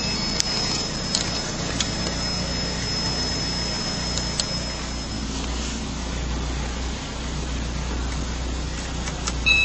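VAZ-2114's four-cylinder engine idling steadily, heard from inside the cabin. A thin high tone runs alongside it and stops about halfway through, with a few light clicks early on.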